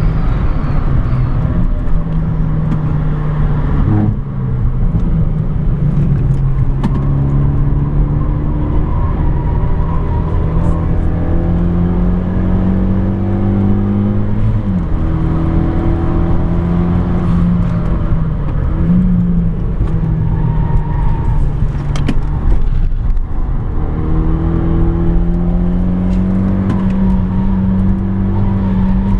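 Renault Megane 225's turbocharged four-cylinder engine with an aftermarket exhaust, driven hard on track: the engine note climbs steadily through the revs and drops sharply several times at gear changes or lifts, over tyre and road noise.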